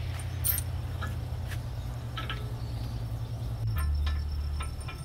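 Light metallic clicks and clinks of steel washers and bolts being handled and fitted on a steel tire carrier, over quiet background music with a low bass line.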